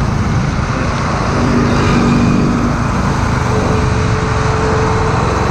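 Heavy truck's diesel engine running among roadway traffic noise: a loud, steady rumble.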